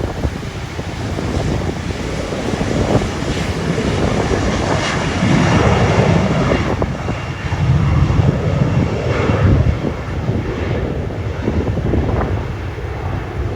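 Jet airliner engine noise with strong wind buffeting the microphone, swelling in gusts through the middle.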